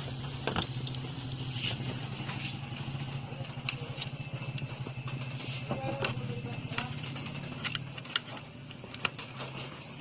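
A motor running steadily with a low hum, easing off about eight seconds in, with scattered sharp clicks over it.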